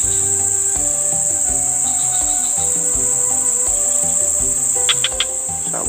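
Steady, shrill chorus of insects, one unbroken high-pitched drone, over soft background music with sustained notes. A few quick clicks come about five seconds in.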